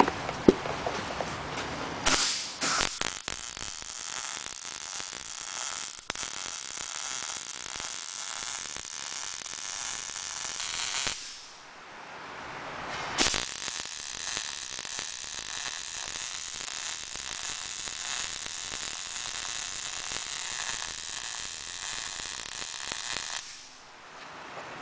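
MIG welder with argon-CO2 shielding gas running a bead on steel channel: the arc gives a steady hissing crackle, stops for about two seconds near the middle, then starts again and runs until near the end.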